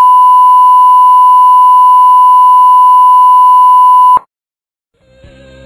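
A steady 1 kHz reference test tone of the kind that accompanies television colour bars, one unbroken beep that cuts off suddenly about four seconds in. After a moment of silence, music begins to fade in near the end.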